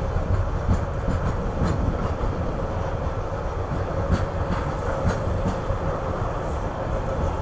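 Fully loaded coal hopper wagons of a long freight train rolling past: a steady low rumble of wheels on the rails, with light clicks scattered through it.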